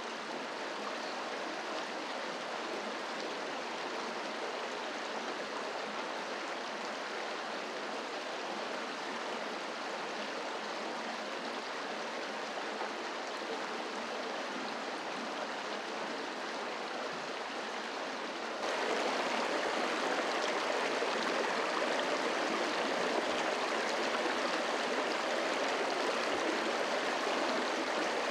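Shallow creek running over rocks: a steady rush of flowing water, which gets louder about two-thirds of the way through.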